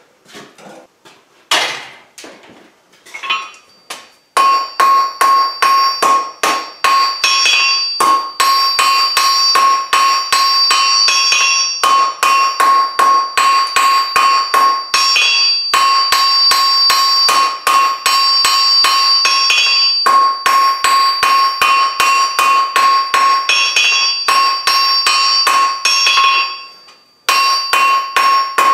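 Hand hammer drawing out a taper on a red-hot mild steel flat bar on a JHM anvil. Steady blows come about three a second, each with a high, bell-like anvil ring, in runs broken by short pauses. A few scattered clanks come first, and the hammering starts about four seconds in.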